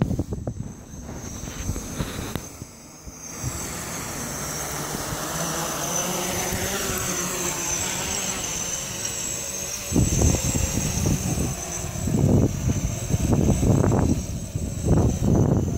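Four 2818 brushless motors with 8-inch propellers on a homemade quadcopter spinning up, a steady whine whose pitch shifts as the throttle changes. About ten seconds in, gusty low rumbling of air buffeting the microphone joins it as the quadcopter lifts off and hovers.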